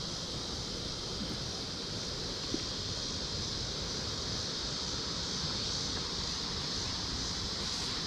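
A steady, high-pitched drone of insects, with wind rumbling on the microphone underneath.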